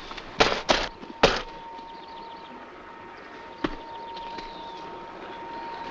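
Eggs smashing on a man's head, as a slapstick sound effect: three quick splats in the first second and a half, then a fainter knock a couple of seconds later. Behind them runs the steady hiss and thin hum of an old film soundtrack.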